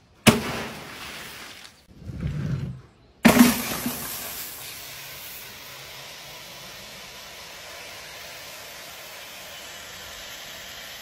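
Plastic soda bottles dropped onto a board of upright nails: two sharp impacts about three seconds apart, the second followed by a long fizzing hiss of carbonated soda escaping from punctured bottles, fading slowly and then steady.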